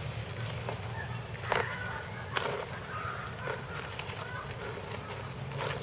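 A plastic bag crinkling and rustling as it is opened, with two sharper crackles about one and a half and two and a half seconds in. Faint short bird chirps and a steady low hum sit underneath.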